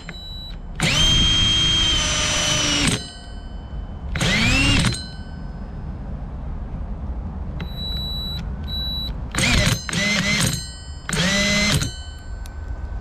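Electric drill run in several separate trigger pulls, spinning up with a rising whine and holding a steady pitch for up to about two seconds at a time. This is a drill that has just caught fire while driving a hole saw.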